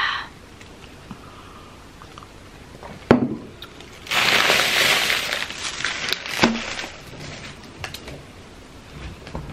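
A sharp knock, then about two seconds of crinkling rustle, like packaging being handled, followed by a few light clicks.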